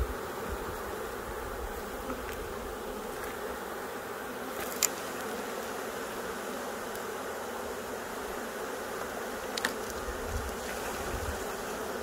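A honeybee swarm buzzing: a steady, dense hum of many bees around the hive box. Two short sharp clicks come about five and ten seconds in.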